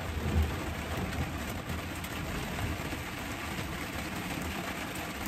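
Steady thunderstorm rain falling on a tent, an even hiss with a low rumble underneath.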